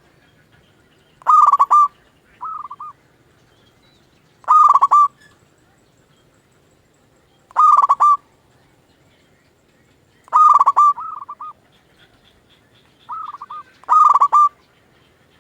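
Zebra dove (perkutut) cooing: a loud, short, rolling coo phrase about every three seconds, five in all, some followed or preceded by a softer, shorter note.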